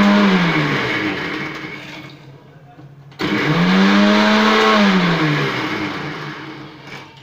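Electric mixer grinder coarsely grinding half an onion in two short pulses, its motor pitch rising and then falling in each. The first pulse is already running and winds down within the first two seconds; the second starts about three seconds in and winds down near the end.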